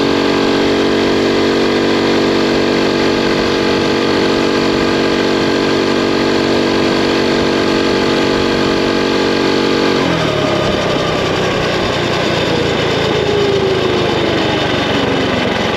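Predator Ghost 212cc single-cylinder four-stroke engine of a mini bike running at steady high revs at about 40 mph. About ten seconds in the throttle is closed and the engine note falls steadily as the bike slows, with wind noise throughout.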